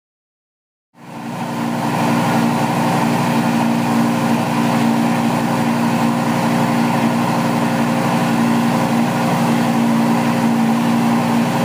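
Lamborghini Gallardo's 5.0-litre V10 engine running at a steady idle, coming in about a second in after a moment of silence.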